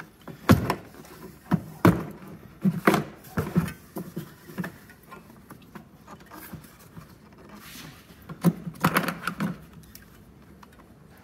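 Plastic airbox cover of an Abarth 1.4 T-Jet being tugged upward off its push-in pop clips: irregular plastic knocks and rattles. There are several in the first few seconds and another cluster near the end.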